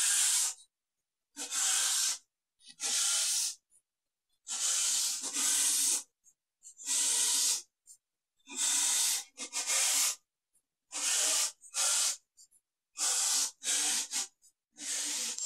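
Cordless drill driving screws up into a wooden header board, running in about a dozen short bursts of half a second to a second each with pauses between them.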